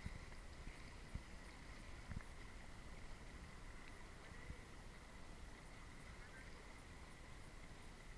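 Faint splashing of swimmers in a pool, with a steady faint high tone throughout and a few soft low knocks in the first two seconds.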